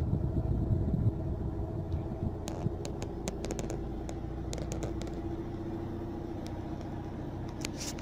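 The 2002 Toyota Corolla's 1.8-litre four-cylinder engine idling steadily at about 1,000 rpm, heard from inside the cabin, with a few light clicks.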